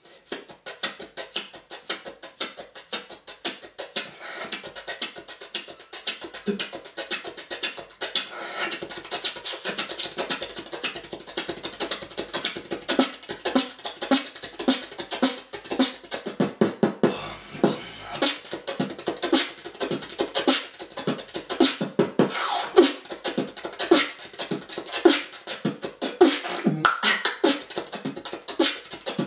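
Solo beatboxing: fast, steady rhythm of mouth-made drum sounds, kicks, snares and hi-hat clicks, filling out after about eight seconds, with short pitched vocal notes woven in over the second half.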